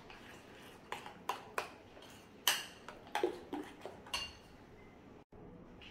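A spoon clinking and scraping against a glass bowl while stirring a thick yogurt-and-cream marinade: irregular clinks, some with a short glassy ring, the loudest about two and a half seconds in.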